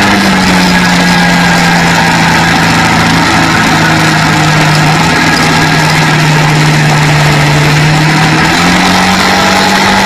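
Quad bike engine droning at a steady cruise under a haze of wind and road noise. The engine note dips slightly about half a second in and rises again near the end.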